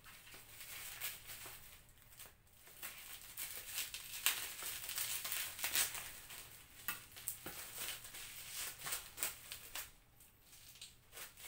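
Clear plastic wrapping on a boxed microphone crinkling and rustling in irregular crackles as it is pulled open and handled.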